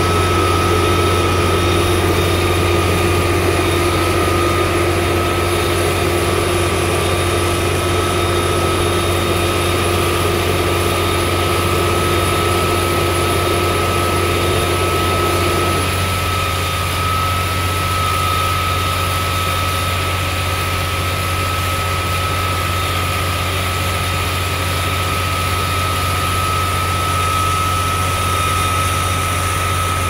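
Fire rescue truck's diesel engine running steadily at idle, a deep hum with a steady high whine over it. A lower steady tone in the sound cuts off about halfway through.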